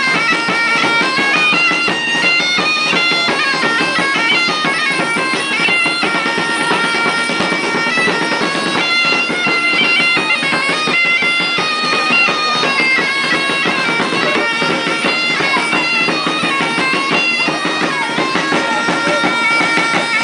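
Live bagpipe music: a continuous stepping melody played over drums.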